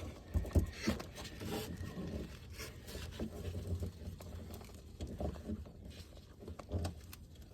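Needle-nose pliers working a heat-softened, glued-in hose end out of a plastic spa manifold fitting: irregular small scrapes, clicks and knocks of metal on plastic.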